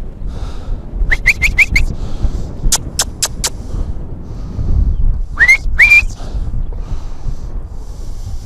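A person whistling and clicking to call the dogs: four quick short rising chirps, then four sharp clicks, then two longer rising whistles.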